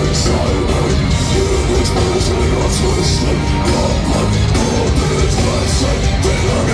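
A loud live metal band playing, heard from within the audience: heavy drums with cymbal hits, distorted guitar and bass, and a singer's voice shouting and singing through the PA.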